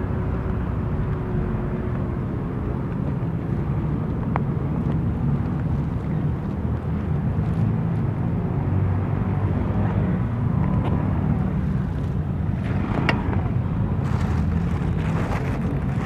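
Honda Click scooter running steadily on the move, a continuous low engine and road rumble, with a few short clicks in the later part.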